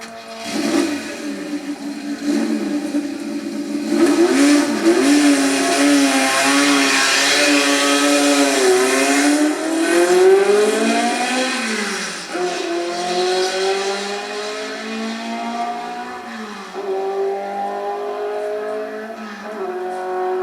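Race car recording from a demonstration tape's racing-sound track, played back through a JVC RC-M90 boombox. The engine note climbs in pitch and then drops several times, as with gear changes, and is loudest in the first half, about 4 to 11 seconds in.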